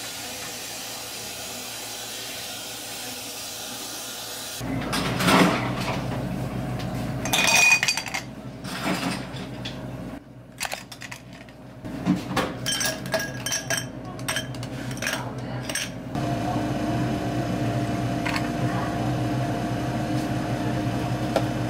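Iced drinks being made at a café counter. First a steady hiss from the espresso machine's steam wand, then glasses set down on a steel counter and ice cubes clinking into the glasses, then a steady machine hum near the end.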